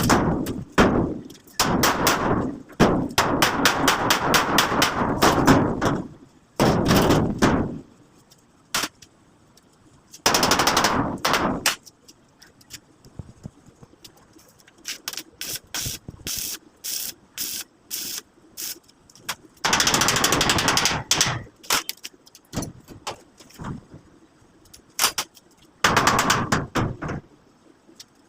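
Metalwork: loud bursts of rapid, sharp crackling or knocking, a second or two each, separated by pauses with scattered single clicks.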